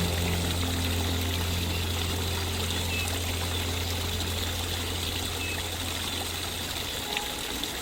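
Water trickling and pouring steadily, with a held low note of soft background music underneath that stops about seven seconds in.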